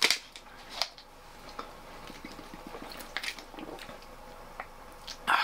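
Plastic drink bottle handled and its screw cap twisted: a few sharp clicks near the start and about a second in, then small scattered clicks and mouth sounds of drinking.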